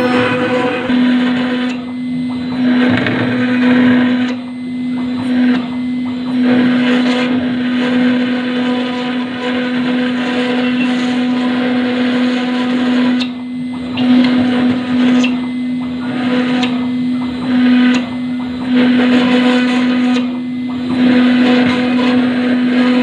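CNC router spindle running with a steady hum while its bit cuts into granite, the grinding noise swelling and dropping off unevenly as the tool moves.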